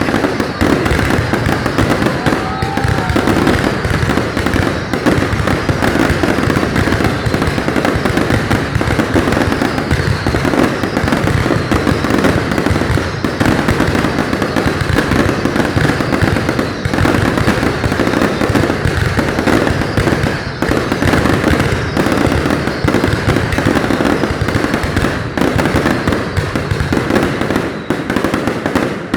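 Public fireworks display: a dense, continuous barrage of firework bursts and crackling, many shells going off over each other without a break.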